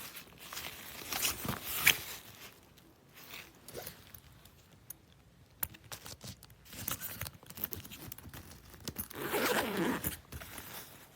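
Laptop backpack being handled: zippers pulled and fabric rubbing, with scattered clicks of buckles or zipper pulls. Short rasps open it, and a longer, louder rasp comes near the end.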